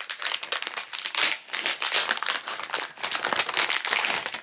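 Holographic foil packaging pouch crinkling loudly as it is handled and pulled open, a dense run of crackles.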